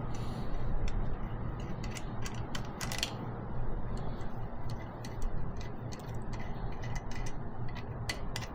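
Socket ratchet clicking in short, irregular runs as injector line fittings are loosened, over a steady low hum.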